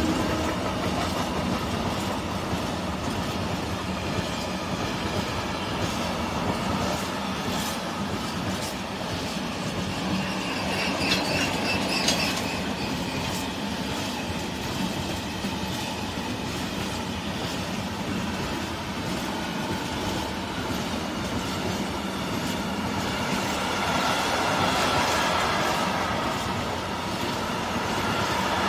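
A freight train's empty container flat wagons rolling past at speed, the wheels rumbling and clattering steadily over the rails. A brief high-pitched wheel squeal comes about eleven seconds in.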